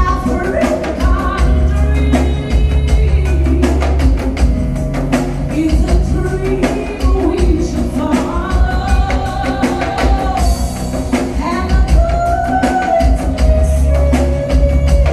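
Live music: voices singing over drums and rattling hand percussion, with many sharp drum strokes throughout.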